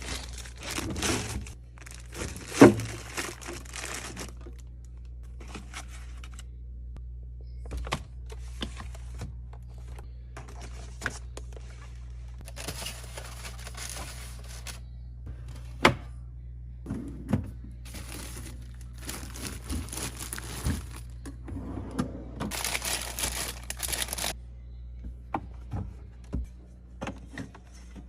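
Plastic food packaging crinkling and being torn open, with a few sharp knocks as containers are set down, over a steady low hum.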